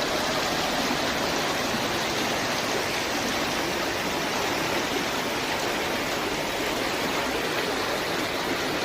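Steady rushing of floodwater pouring through a street, welling up from the storm drains.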